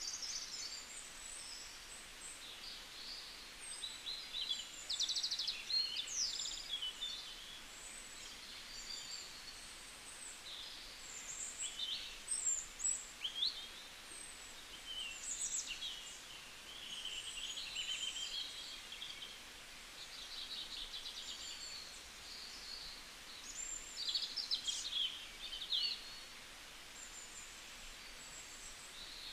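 Birds chirping: many short, high calls and quick trills, in bursts with short lulls between them.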